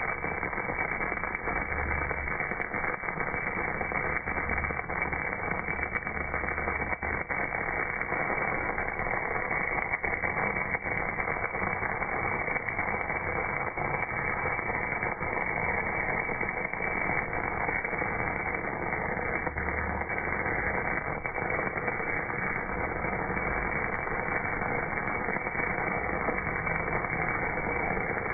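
MAG welding arc running on a cast part, slowed down with the slow-motion picture into a steady, muffled hiss with faint scattered crackles.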